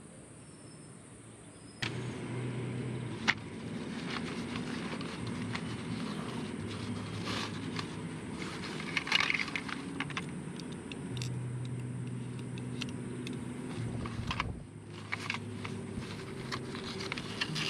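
Hands rummaging in a fabric stuff sack and taking out a folding liquid-fuel camp stove: cloth rustling with many small clicks and clinks of metal parts, starting about two seconds in. A low engine hum runs underneath.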